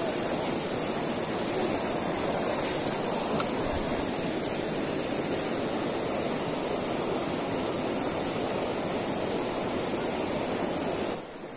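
Rocky mountain stream rushing over small rapids: a steady, even rush of water that drops away suddenly near the end.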